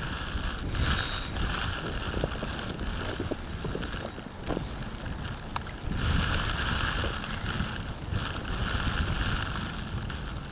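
Wind buffeting the camera microphone in gusts, a rough rushing noise that swells about a second in and again over the last four seconds, with scattered faint clicks.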